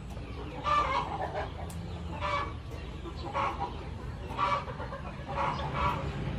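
Chickens clucking, short calls about once a second, over a low steady hum.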